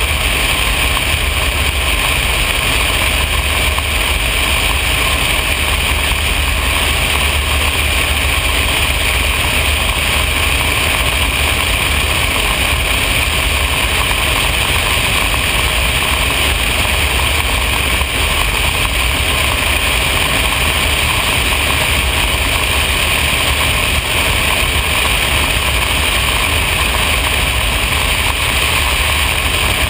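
Cessna 180 floatplane's six-cylinder piston engine and propeller running with a steady, unbroken drone.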